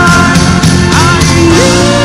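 A male singer sings into a microphone over a backing band in a rock-pop style, sliding up into a long held note near the end.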